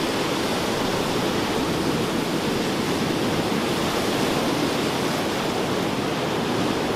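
Ocean surf breaking and washing over rocks: a steady, even rush of white water.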